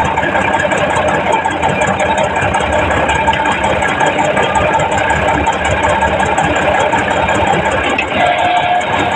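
Heavy diesel engine of earthmoving machinery running steadily under an even load. A brief steady tone sounds near the end.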